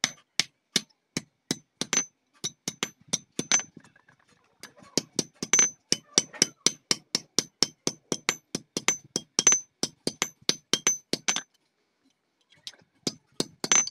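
A small hand hammer strikes a thin steel sheet held in pliers on a steel-block anvil. The light blows come at about two to four a second, each with a short high metallic ring. They break off briefly about eleven seconds in, then a few more strikes follow near the end.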